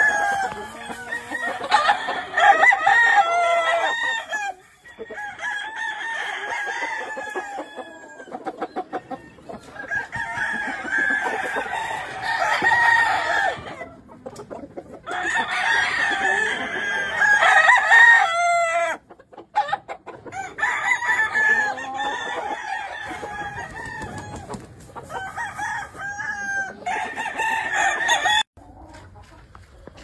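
Gamefowl roosters crowing, one long crow after another, some overlapping, with short breaks. The crowing stops abruptly near the end.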